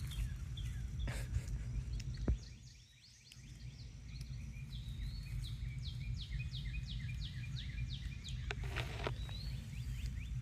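A bird chirping in a rapid series of short, high notes, several a second, over a steady low background rumble.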